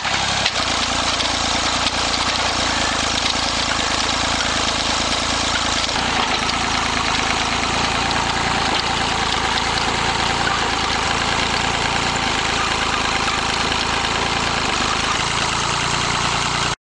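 Open-source LifeTrac tractor's engine running steadily while powering its hydraulic rototiller through grassy ground. The sound shifts about six seconds in, with the lower part growing stronger.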